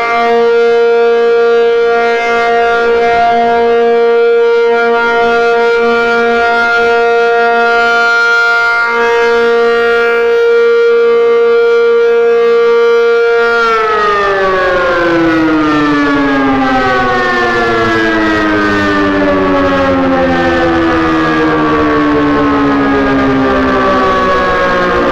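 Mechanical outdoor warning siren sounding a steady tone. About 14 seconds in it is switched off and winds down, its pitch falling slowly and steadily.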